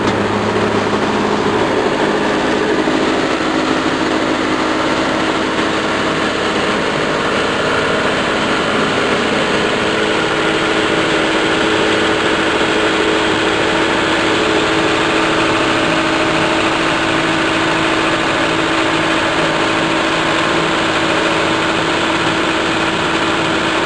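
Multipurpose chopper-grinder with a sieve screen running steadily under load, milling dried corn plant material into fine meal: a loud, even machine noise with a steady hum.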